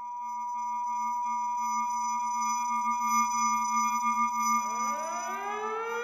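Synthesized intro sound effect: several steady electronic tones held together, fading in at the start, joined about four and a half seconds in by rising pitch sweeps that swell toward the end.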